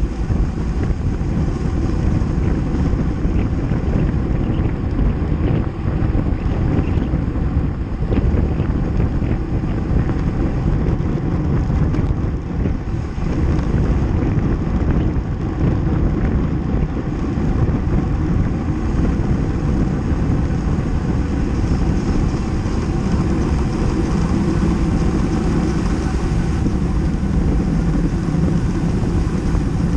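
Steady wind rush over the microphone of a camera carried on a road bike riding at race speed, heaviest in the low end.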